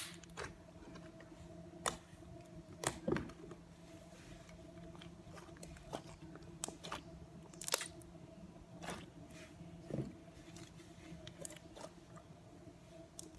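Thick white slime being poked, pressed and squeezed by hand, giving a dozen or so irregular sticky clicks and pops spread out, over a faint steady hum.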